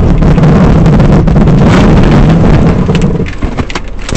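Car engine running loud and steady, heard from inside the cabin, then cut off about three seconds in, leaving scattered clicks and knocks.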